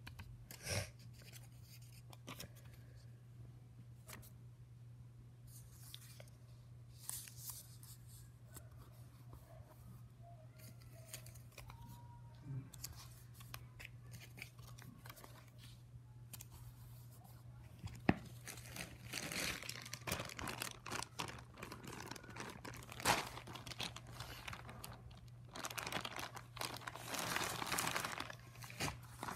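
Sticky notes being peeled off their pads and pressed onto journal pages, in scattered soft paper rustles and tearing sounds that grow busier in the second half. Near the end comes the crinkle of a plastic packet of sticky notes being handled.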